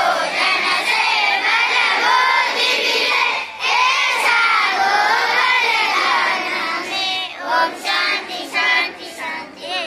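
A large group of children chanting a prayer together in a sing-song unison before eating. About seven seconds in, the continuous chant breaks into short separate phrases.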